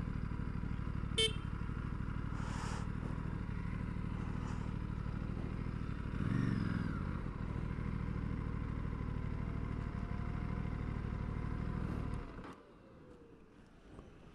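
Aprilia RS457 parallel-twin engine idling steadily, with a short blip of revs about six seconds in, then switched off about twelve seconds in. A brief sharp click sounds about a second in.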